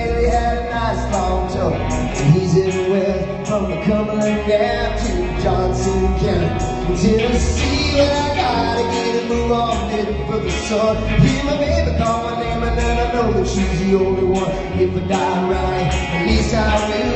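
Live country-rock band playing: a male lead vocal sung into a microphone over strummed acoustic guitar, electric guitar and drums with a steady beat.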